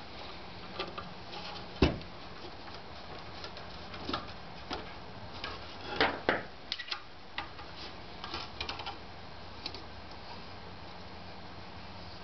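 Small metal clicks and taps of a bolt and Allen key as a corner bracket is fastened to a 3D printer bed plate by hand. There is a sharp knock about two seconds in and a cluster of clicks around six seconds in.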